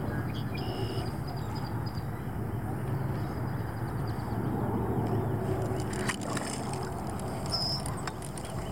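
Steady wind rumble and water noise around a small fishing boat, easing a little about halfway through, with a few sharp clicks about six seconds in.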